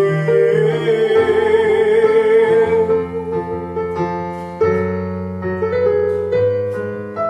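Casio digital keyboard playing piano chords in an instrumental passage between sung lines, a new chord entering about every one and a half to two seconds. Over the first few seconds a sung note is held and wavers before it fades.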